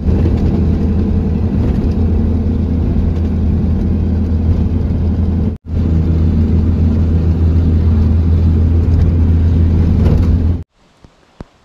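Pickup truck driving at highway speed, heard from inside the cab: a loud, steady engine and road drone. It breaks off for an instant about five and a half seconds in and stops suddenly near the end.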